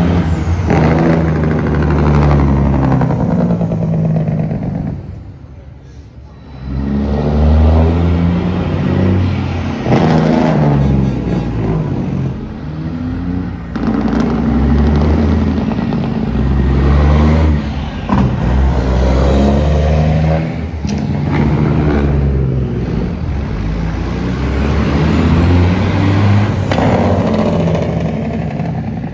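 A line of semi trucks passing one after another, their big diesel engines loud, revving and dropping in pitch on the engine (Jake) brakes in turn, with a short lull about five seconds in.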